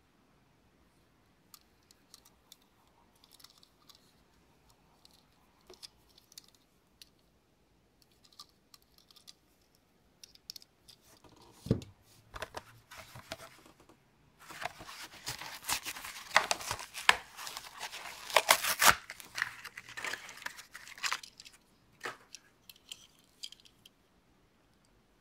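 Light clicks and taps of handling for the first ten seconds or so and a sharp knock about twelve seconds in, then about six seconds of loud tearing and crackling as a Matchbox cardboard-and-plastic blister pack is ripped open.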